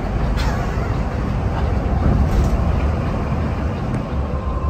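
Mercedes-Benz OH 1626 coach cruising on a highway, heard inside the cabin: a steady low engine and tyre rumble.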